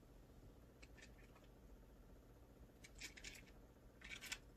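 Near silence broken by faint rustling and light clicks of earrings and their packaging being handled, in short clusters about a second in, about three seconds in and near the end.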